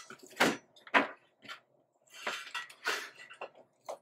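Handling noise from wiring up an LED strip light: cables and a plastic LED strip reel moved about on a tabletop and a laptop charger plug handled, giving a string of irregular clicks, knocks and rustles.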